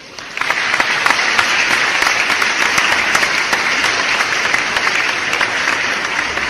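A crowd applauding: dense, steady clapping that starts a moment after the music stops and eases off slightly near the end.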